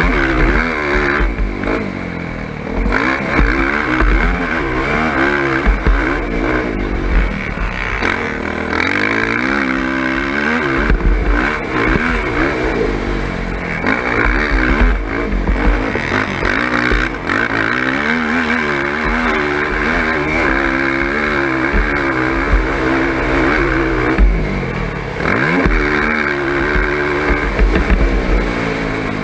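Sport quad (ATV) engine heard from onboard, revving up and falling back again and again as it accelerates, shifts and brakes around a dirt motocross track, with a low buffeting rumble underneath.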